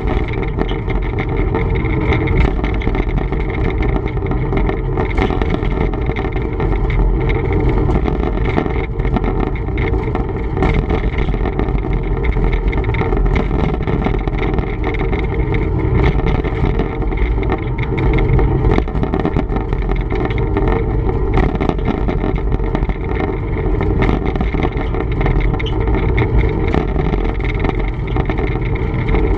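TEM2 diesel shunting locomotive running steadily under way, its engine a loud, even rumble with many faint ticks and crackles over it.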